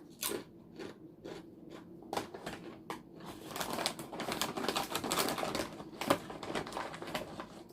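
Close-miked crunching of crisp chips being chewed: a few separate sharp crunches, then a dense run of crackling chewing for about three seconds in the middle, then a few more crunches.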